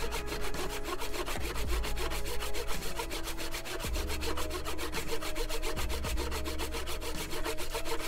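Handsaw with a wooden handle sawing through wood in steady back-and-forth strokes, its teeth rasping as it cuts. It is trimming off the protruding excess of a freshly glued wooden throat insert in a wooden plane.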